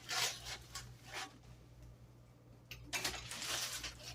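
Plastic tube parts of a portable shampoo bowl being handled and fitted together: short bursts of plastic rubbing and rustling, with a sharp click shortly before the longest burst near the end.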